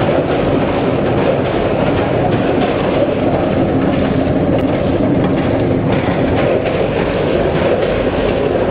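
Multihead combination weigher running with potato chips: a loud, steady machine clatter over a low hum.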